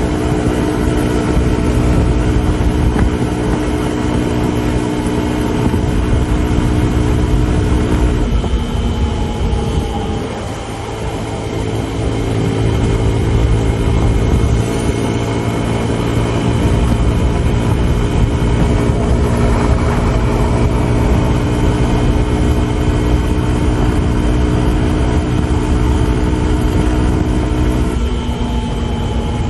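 Suzuki DR150 single-cylinder engine running at a steady high cruise under a heavy rumble of wind and road noise. About eight seconds in the engine note drops and the sound dips briefly, then the engine pulls back up to a steady note.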